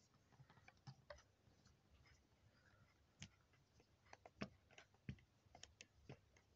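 Faint, scattered clicks of a small screwdriver turning a screw out of the base of a diecast model truck, with a slightly louder click or two about four to five seconds in.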